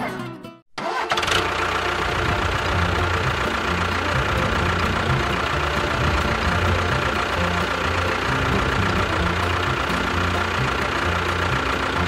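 Tractor engine running steadily with a low, uneven chug, starting about a second in after a brief gap in the sound; it goes with a miniature tractor pushing a road-roller drum over sand.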